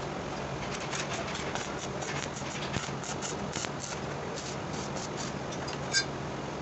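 Irregular small metallic clicks and taps from work on the compressor, with one sharp ringing metal clink about six seconds in, over a steady low mechanical hum.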